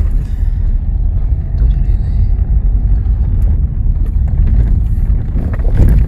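Car in motion, heard from inside the cabin: a steady low rumble of engine and tyres on the road.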